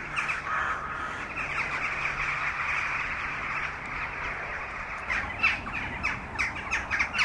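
A large flock of crows cawing, many calls overlapping into a continuous din, with a few louder single caws standing out in the last couple of seconds.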